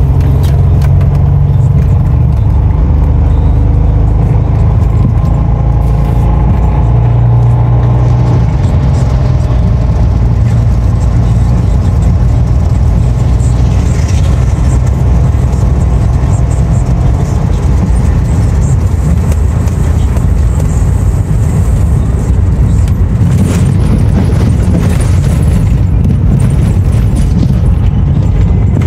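Steady low rumble of road and engine noise inside a moving car's cabin, holding level without any sharp events.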